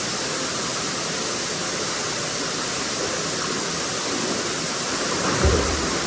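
Waterfall, water rushing steadily. A brief low thump comes near the end.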